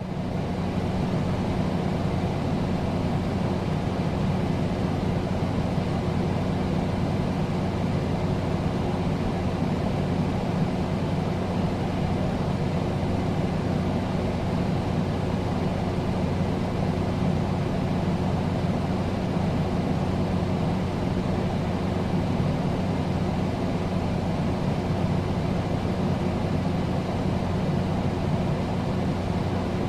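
Air conditioner running steadily: an even rushing of air with a constant low hum underneath.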